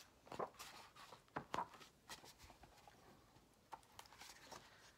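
Faint handling sounds of a picture book being picked up and opened: a few soft taps and paper rustles, mostly in the first half.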